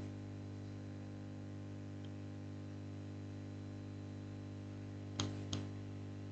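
Steady low electrical hum with faint hiss, the background noise of a recording microphone, broken by two short clicks about five seconds in.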